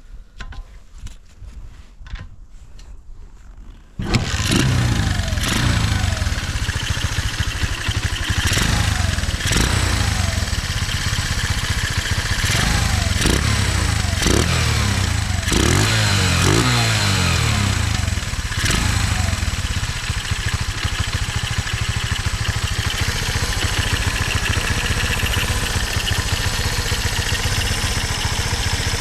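Honda Ape 100's single-cylinder four-stroke engine starting suddenly about four seconds in after a few light clicks. It is blipped through a string of short revs, then settles into a steady idle, running with no abnormal noises.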